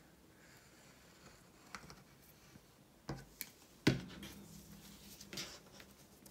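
Quiet handling of paper and a fabric strip on a craft mat: a few light taps and clicks, the sharpest a little past the middle, and a short faint rustle near the end.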